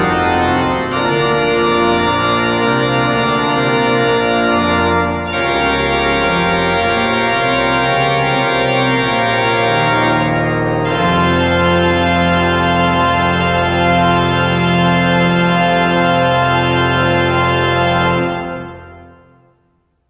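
Pipe organ playing slow sustained chords, with deep bass notes joining about halfway through; the last chord dies away near the end.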